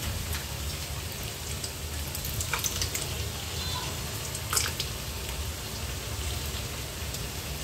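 Thick yogurt being emptied from its tub into a pot of marinated chicken: a few soft taps and plops, the clearest about four and a half seconds in, over a low steady hum.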